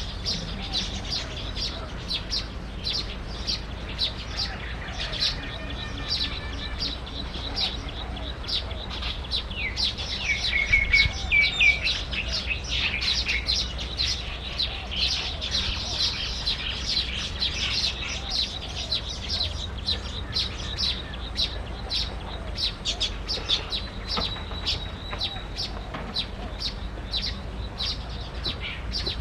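Small birds chirping continuously in quick, high chirps, about three a second, with a short trill about ten seconds in.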